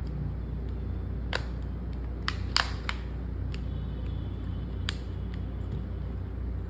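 Scattered sharp clicks and taps as a smartphone is handled and turned over on a repair bench mat, about half a dozen in all, the loudest a quick pair near the middle, over a steady low hum.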